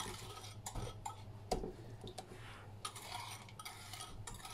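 Metal wire whisk scraping and tapping against a ceramic bowl as a beaten egg mixture is scraped out: quiet, irregular light clicks and scrapes.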